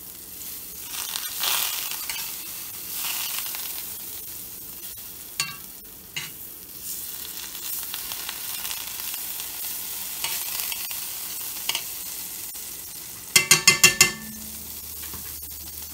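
Butter sizzling and spattering in a very hot cast iron skillet while a utensil pushes it around the pan. Near the end comes a quick run of five sharp clicks.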